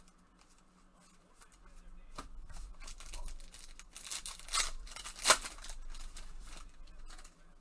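A foil trading-card pack being torn open by gloved hands: the wrapper crinkles and rustles, with two sharp rips about four and a half and five seconds in.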